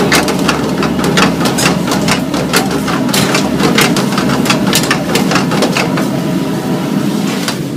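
Metal ladle repeatedly knocking and scraping against a kadai as paneer is stirred in, several sharp clacks a second, over a steady low mechanical hum.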